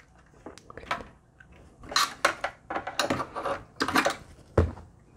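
Clicks, taps and scrapes of a screwdriver and fingers working inside a desktop PC's steel case, pressing a DDR4 RAM module down into its motherboard slot, with a duller knock about four and a half seconds in.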